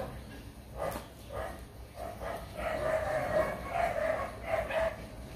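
A dog whining and yipping in a string of short high cries, coming thickest in the second half. A single sharp knock sounds about a second in.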